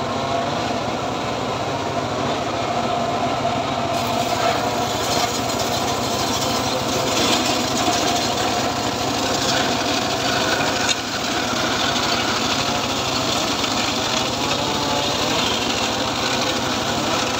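Homemade circular saw running and ripping a hard, dry acacia log lengthwise, the blade's whine wavering under load as the wood is pushed through. The cutting hiss grows denser about four seconds in.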